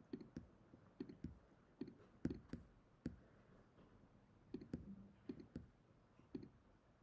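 Faint computer clicks, about a dozen at irregular spacing, several in quick pairs, as points are placed along a route on a web map.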